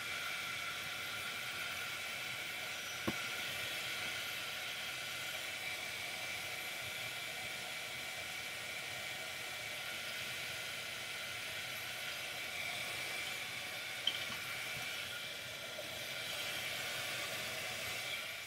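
Craft heat gun blowing steadily, drying paint and paste on a tin, with a couple of light clicks.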